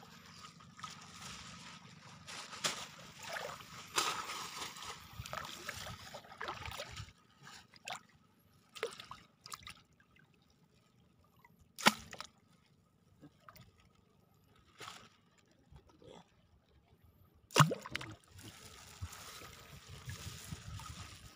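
Shallow seawater sloshing, trickling and splashing as a fish is worked out of a net with a hooked pole and dropped into a plastic bag. Two sharp knocks stand out, one just past the middle and a louder one about six seconds later.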